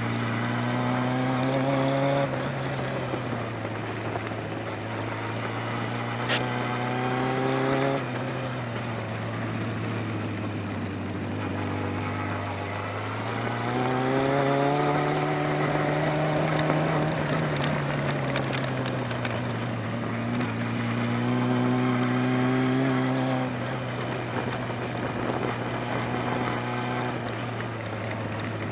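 Sport motorcycle's engine running and rising and falling in pitch as the throttle is opened and closed through tight, leaned-over turns. A single sharp click about six seconds in.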